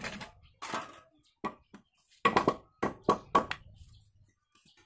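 A handsaw's last rasping strokes through a wooden plank, then a short series of sharp wooden knocks on the plank. The loudest knocks come quickly one after another a little past the middle.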